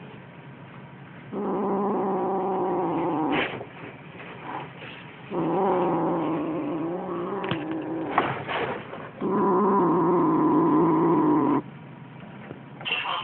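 Siamese kitten growling over a toy mouse it has caught, in three long, steady growls of two to four seconds each, with a few short taps in the pauses between them.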